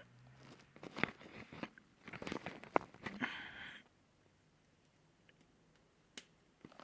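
Irregular crackles and crunches of paper and wood at a wood stove fire for about four seconds, then a lull broken by one sharp snap near the end.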